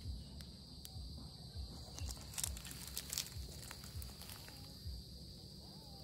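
Faint, irregular footsteps and soft thuds with a few light clicks, over a steady high-pitched insect drone.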